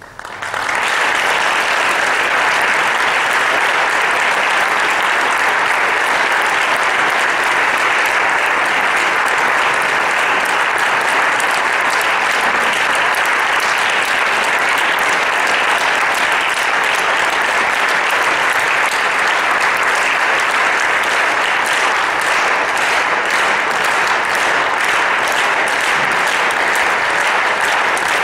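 Audience applauding: the clapping breaks out suddenly and then holds steady and loud.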